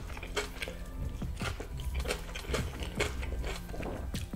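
Crispy homemade fried chicken being bitten and chewed: a run of irregular crunches and crackles of the breaded crust, with wet chewing between them.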